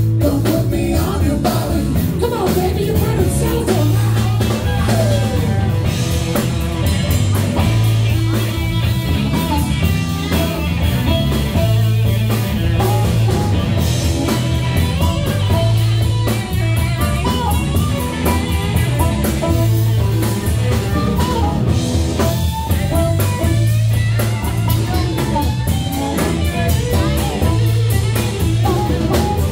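Live blues band playing with harmonica lines over electric guitar, a repeating bass line and drum kit.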